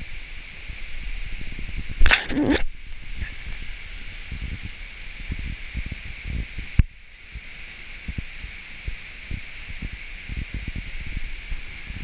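Waterfall rushing steadily, with wind buffeting the microphone in low gusty thumps. A brief loud rustle comes about two seconds in, and a sharp click just before seven seconds, after which the wind thumps ease.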